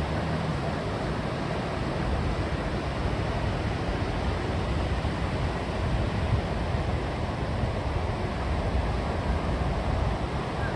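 Steady rushing noise of wind and sea surf, with wind buffeting the microphone.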